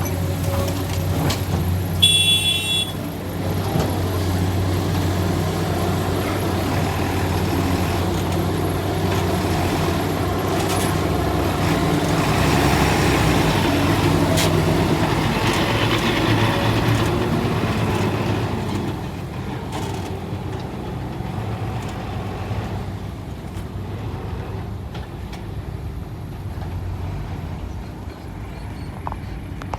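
Heavy vehicle engine running steadily, with a short high-pitched squeal or hiss about two seconds in. It grows louder through the middle, then drops back and runs quieter after about nineteen seconds.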